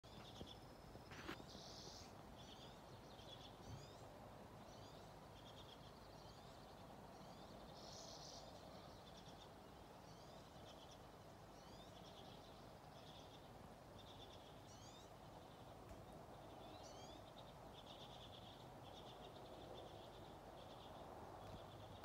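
Small songbirds singing faintly: a steady run of short high chirps, one or two a second, with quick rising whistled notes among them, over a low background hiss. A single sharp click about a second in.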